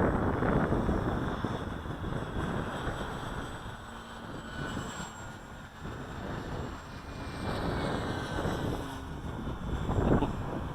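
Faint high whine of a Max Thrust Riot RC plane's electric motor and propeller in flight, under the louder rush of gusty wind buffeting the microphone.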